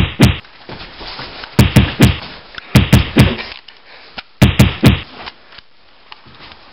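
Heavy thumps and knocks on the camera's microphone, in clusters of two or three about every second and a quarter, with a low rumble after each: the handheld camera being jostled against a moving person.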